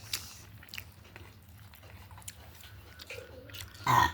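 Close-up eating: chewing with scattered small crunches and clicks, and a short vocal sound just before the end.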